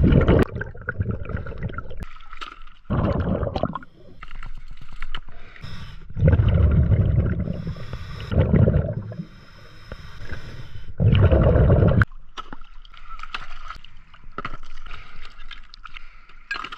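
Scuba diver's regulator heard underwater: about five loud, low rumbling bursts of exhaled bubbles a few seconds apart, with quieter stretches between breaths.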